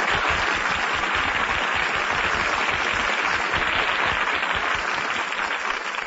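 Audience applauding, a steady even clatter of many hands that dies away near the end.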